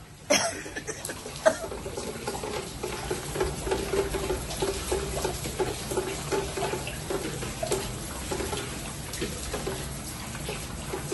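Floodwater from heavy rain splashing and trickling over a tiled floor, with a sharp knock just after the start.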